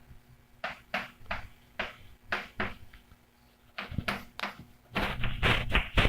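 Short scratchy handwriting strokes at an irregular pace, sparse at first and coming in a quick, denser run near the end.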